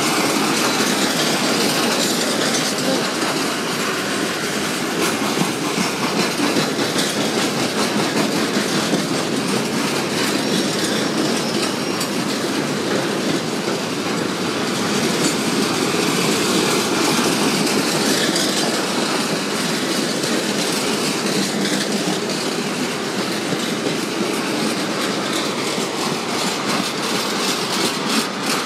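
Wheels of a long freight train of empty box and flat wagons rolling past, a steady rumble with clickety-clack over the rail joints.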